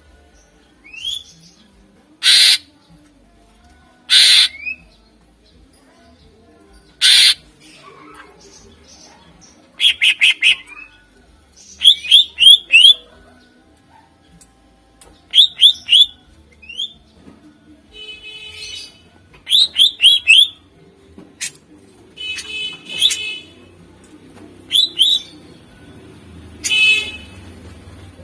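A green leafbird (cucak ijo) singing loudly in separate phrases. First come three short, harsh calls. Then come groups of two to four quick, rising whistled notes, mixed with buzzy rattling phrases.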